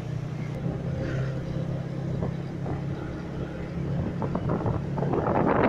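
Heavy rain and strong wind over a steady low hum. About five seconds in, a gust rises and buffets the microphone.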